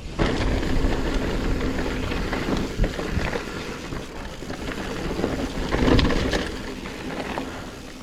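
Wind rushing over the helmet microphone and a mountain bike rolling along dirt singletrack, with a few knocks and rattles from the bike. The rushing fades near the end as the bike slows.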